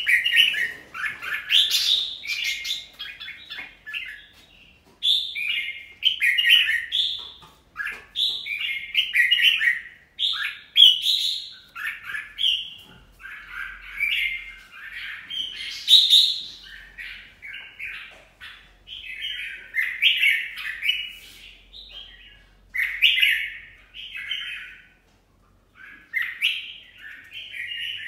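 Red-whiskered bulbul song: short, warbling whistled phrases repeated one after another with only brief pauses, a little quieter for a moment near the end.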